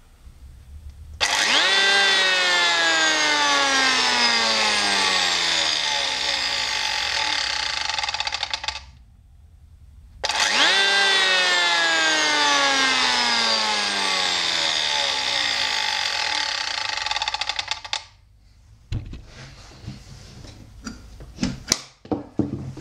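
Makita KP0810C electric hand planer run twice, each time spinning up within a fraction of a second, then its pitch slowly falling for about seven seconds before it stops; it has an unexplained knock that the owner is trying to track down. Near the end come several sharp knocks and clicks as the tool is handled.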